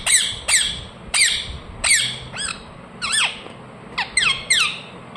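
Indian ringneck parrot giving about ten short, shrill chirping calls at uneven spacing, some in quick pairs. Each call drops sharply in pitch.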